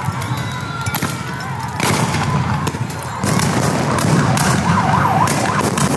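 A police siren wailing, louder from about three seconds in, over a low rumble. Sharp bangs go off throughout.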